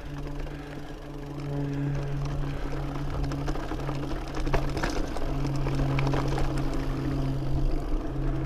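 Mountain bike's rear freehub buzzing while coasting, a steady ratcheting hum that cuts out briefly a few times, with tyres rolling over loose rocky dirt and a few sharp knocks from stones around the middle.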